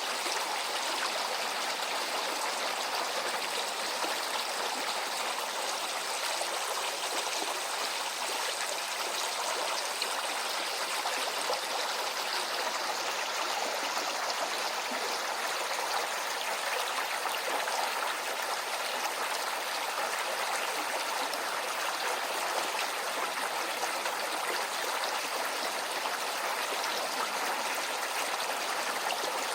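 A shallow stream flowing steadily over rocks, a continuous splashing, trickling rush of water.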